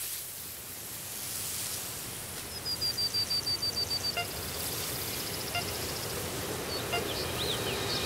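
Steady rushing noise of a waterfall. A bird trills a quick run of about a dozen high notes a few seconds in, with a few short calls later.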